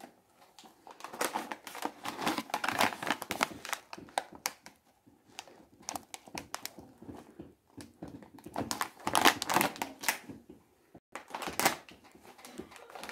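Plastic snack bag crinkling as it is handled and turned, in several spells with short quiet gaps between.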